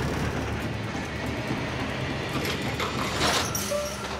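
Heavy truck diesel engine running steadily under load as it pulls on tow chains, trying to drag a bogged road train that does not budge. A couple of sharper rattles come through about two and three seconds in.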